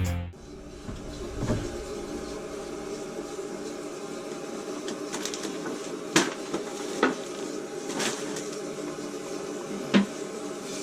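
Toilet tank water running steadily, with a few sharp clicks and knocks from tank parts being handled, the loudest about six seconds in and near the end.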